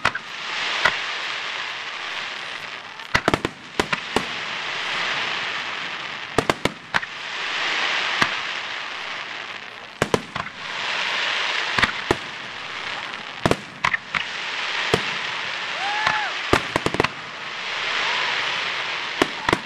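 Aerial fireworks shells bursting: sharp bangs in clusters every two to three seconds, with a hiss that swells and fades between the clusters.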